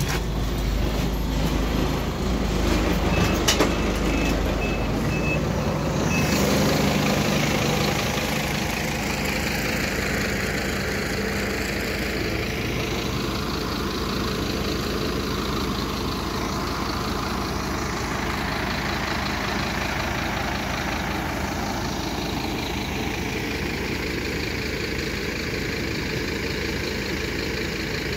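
Diesel city bus engine running at standstill. A run of short high warning beeps sounds from about three seconds in for about three seconds, then the engine settles into a steady hum with slow swells.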